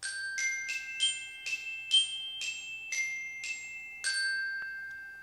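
Intro jingle of about ten bright, bell-like struck notes in a quick melody, the last note left ringing for about a second.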